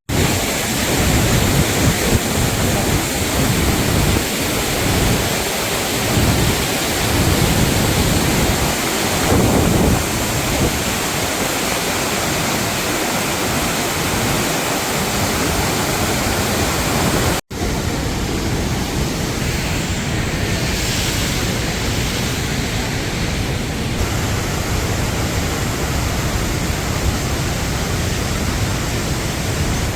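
Rhine Falls, Europe's largest waterfall, thundering: a loud, steady rush of falling water, broken by a momentary dropout about seventeen seconds in.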